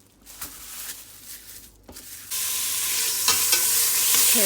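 A few faint kitchen clicks, then about two seconds in, a sudden loud, steady sizzle of food frying in a hot pan.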